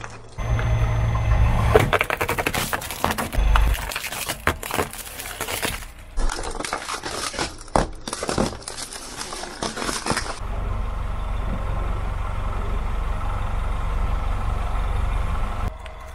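Plastic toys cracking and crunching under a car tyre, a dense run of sharp snaps and cracks. After about ten seconds this gives way to the car's steady low rumble, which stops shortly before the end.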